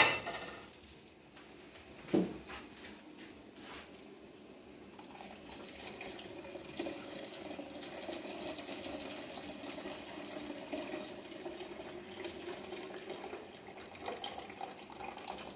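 Coconut milk being poured from a metal bowl through a plastic sieve into a pot, a steady splashing trickle from about five seconds in. A sharp clatter at the very start and a knock about two seconds in come before the pouring.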